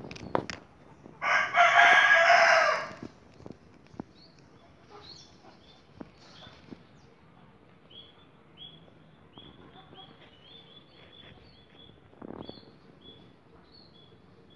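A rooster crows once, loud and about two seconds long, starting about a second in. After it, a small bird chirps over and over in short, high notes.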